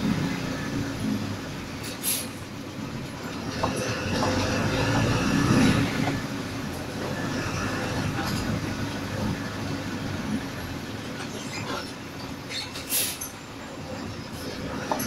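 Bus engine running with steady low road rumble inside the driver's cab while driving, with two brief hisses, one about two seconds in and one near the end.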